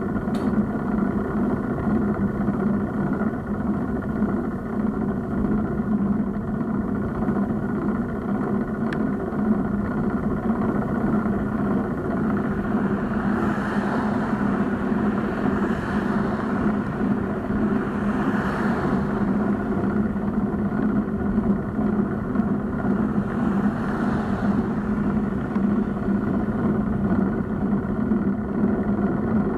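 Steady low hum and road noise of riding a bicycle, picked up by a bike-mounted camera. Cars pass in the next lane several times, around 14, 18 and 24 seconds in.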